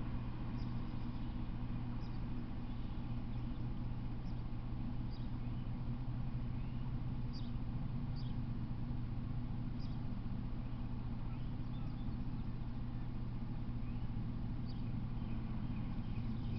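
Steady low hum with scattered brief, high bird chirps over it.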